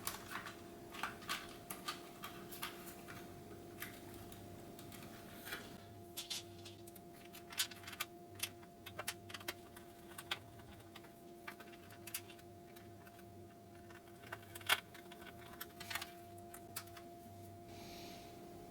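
Scattered small clicks and taps of plastic parts being handled and fitted as a dishwasher's front control panel is reassembled, over a faint steady hum.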